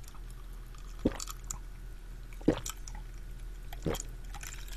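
A person gulping a cold drink from a glass mug in long swallows, with three louder gulps about a second and a half apart.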